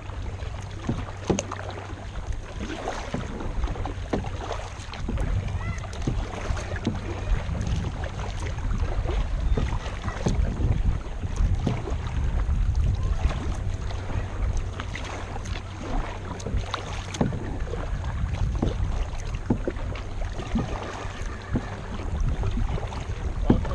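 Kayak paddling on a river: paddle blades dipping and splashing in the water, with scattered knocks, over a steady low rumble of wind on the microphone.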